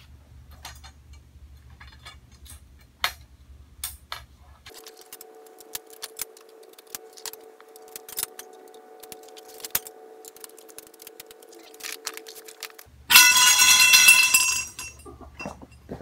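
Grow-tent frame poles clinking and tapping as they are handled and pushed together, in scattered light metallic clicks. Near the end a loud pitched ringing sound lasts about two seconds, the loudest sound here.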